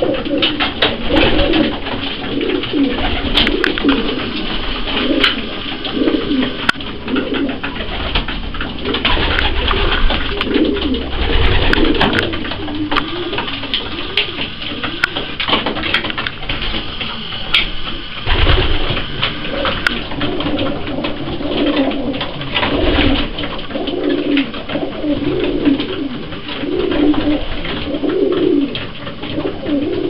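A flock of racing pigeons cooing, several birds overlapping in a continual low warbling, with scattered sharp clicks of beaks pecking grain in a wooden feed trough.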